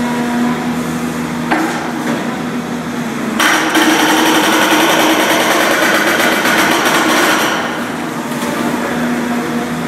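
Hydraulic breaker on a TEREX tunnelling excavator hammering rock in a rapid stream of blows for about four seconds, starting a little over three seconds in, over the steady drone of the machine's engine.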